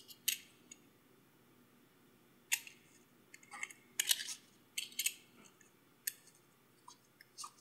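Irregular small metallic clicks and short scrapes as the Rolex Datejust 1601's case back is set onto the case and screwed down with a rubber case-back ball. There are a dozen or so, with a dense cluster around the middle.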